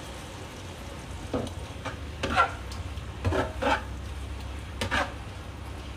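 Rice vermicelli being stir-fried in a wok, sizzling, with the meat-marinade sauce just added. A spatula scrapes and tosses the noodles against the pan in about five separate strokes over a low steady hum.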